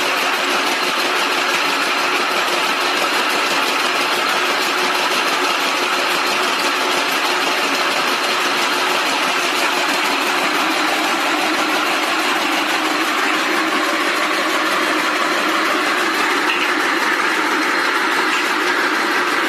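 Rope braiding machines running, their bobbin carriers circling and the gear works making a loud, steady mechanical clatter.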